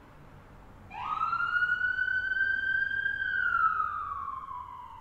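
Emergency vehicle siren wailing, starting about a second in: its pitch sweeps up quickly, holds high for a couple of seconds, then slowly falls.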